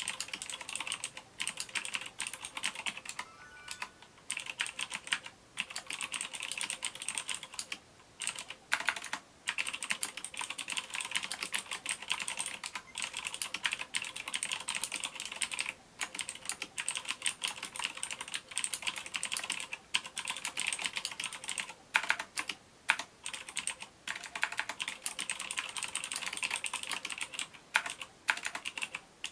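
Steady fast typing on a Befriend iMagic G-MASTER Custom LED mechanical keyboard with clicky blue switches: a dense stream of sharp key clicks, broken by a few brief pauses.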